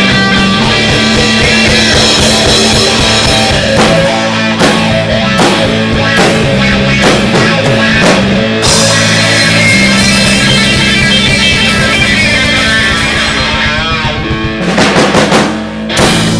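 Live band playing a loud electric blues-rock instrumental passage: electric guitar over a drum kit, with a run of heavy drum and cymbal hits near the end.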